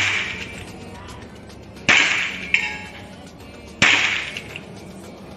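PCP air pistol firing repeated single shots, a sharp crack about every two seconds, two in full plus the tail of one just before. Each shot is followed about half a second later by a lighter knock and brief ringing, typical of the pellet striking a metal reactive target.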